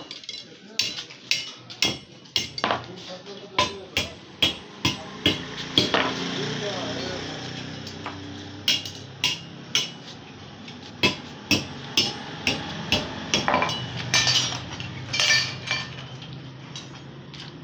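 Hammer striking steel: a long series of sharp ringing blows, about one or two a second, with a pause of a couple of seconds partway through.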